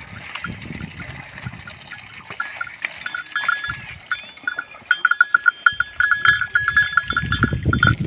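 Small livestock bells jingling in quick, repeated rings, starting about three seconds in and growing louder and denser through the second half.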